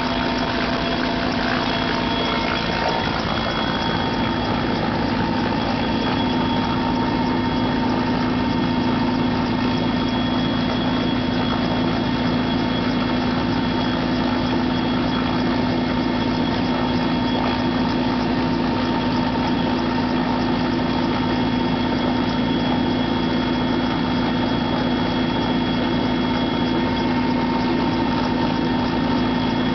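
Helicopter running steadily: a continuous engine and rotor noise with a steady high whine that does not change.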